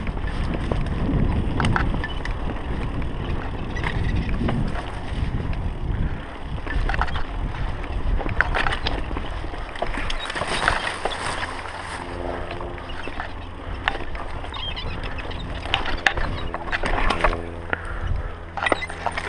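Wind rumbling on a GoPro's microphone and the rattle and knocks of a mountain bike riding over a dirt woodland trail. About twelve seconds in, background music with steady held notes comes in under the riding noise.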